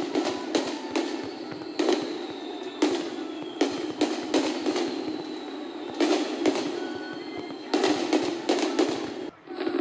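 Aerial firework shells bursting in a string of sharp bangs at uneven intervals, some in quick clusters.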